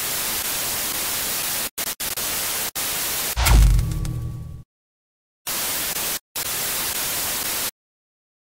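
Bursts of TV-style static hiss that switch on and off abruptly, with dead silence between the bursts. About three and a half seconds in, a low boom with a falling sweep rises above the static.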